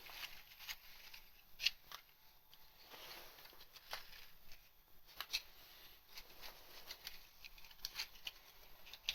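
Faint, scattered light clicks and rustles of cardboard matchboxes being handled and set down in a row, with a sharper tick about a second and a half in and another near the end.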